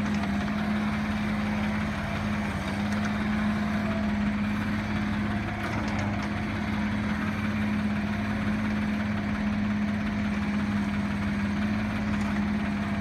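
2008 Bobcat 323J mini excavator's diesel engine running at a steady speed as the machine works, a constant drone with an even hum.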